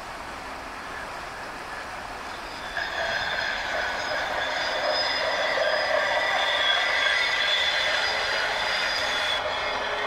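Train passing on the far bank, its steel wheels squealing in several steady high tones. It gets louder about three seconds in.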